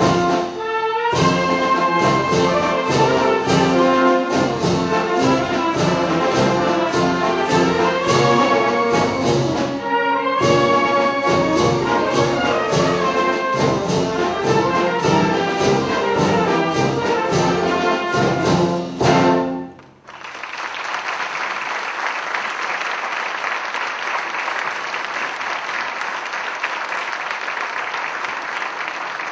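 Youth concert wind band (brass, woodwinds and percussion) playing over an even percussion beat, with two brief breaks, ending on a loud final chord about two-thirds of the way through. Audience applause follows.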